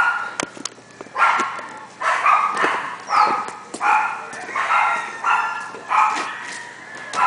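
Dogs penned in kennels barking over and over, about one bark every second, with a few sharp clicks among the barks.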